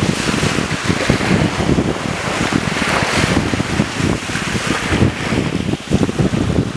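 Small waves breaking and washing up a sandy beach, their hiss swelling and fading, with wind buffeting the microphone in low, gusty rumbles.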